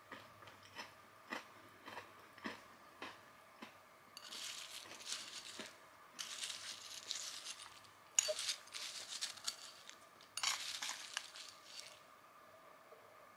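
Crunchy chewing of a dry snack mix for the first few seconds, about two crunches a second and fading. Then a metal spoon digs and stirs through dry, crunchy Indian snack mix of cornflakes, peas and peanuts in a ceramic bowl: rustling, crackling scrapes in three stretches, with a sharp clink about eight seconds in.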